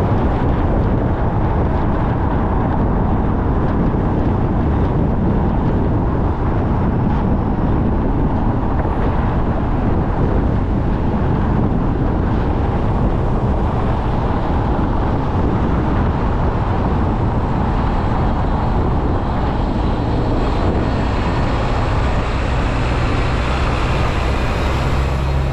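Car driving along a road: steady tyre and road noise with a deep rumble underneath.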